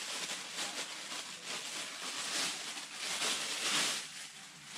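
Plastic bag rustling and crinkling steadily as a crankshaft is taken out of it.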